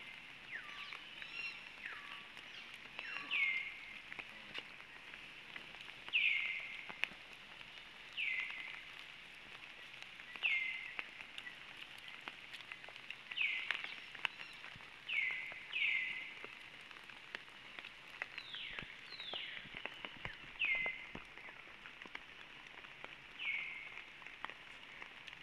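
Short high-pitched animal calls, each falling and then levelling off, repeated about every two seconds over a steady outdoor hiss with scattered faint clicks.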